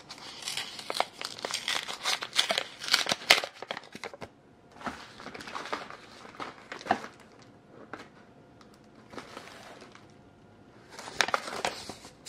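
Paper envelope being handled and opened, its paper crinkling and crackling. The rustling is busiest for the first four seconds, thins to a few quieter rustles, and picks up again near the end.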